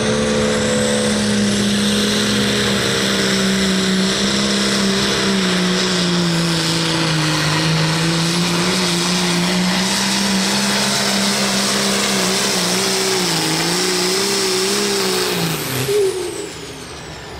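Turbocharged International 766 pulling tractor running at full throttle on a pull, dragging the weight-transfer sled. The engine holds a steady high note that sags a little and wavers partway through, then falls away about a second before the end as the throttle comes off and the tractor stops.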